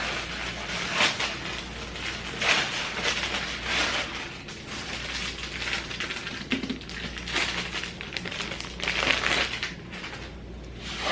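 Packaging being torn open and handled while unboxing a microphone: irregular crinkling and rustling of plastic and cardboard, with a few sharper cracks.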